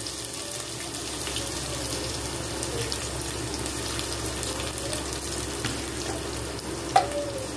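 Chopped onions sizzling in hot oil with garlic and curry leaves in a stainless steel pot, a steady hiss with small pops, just after the onions go in. A single sharp tick near the end.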